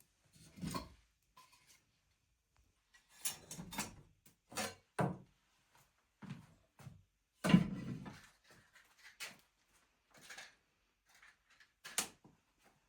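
A series of irregular knocks and clunks of objects being handled and set down, the loudest a sharp clunk about halfway through.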